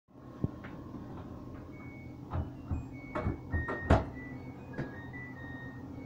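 Knocks and clunks of handling at a front-loading washing machine, about six in all with the loudest about four seconds in, over a steady low hum. Several short high-pitched tones come and go.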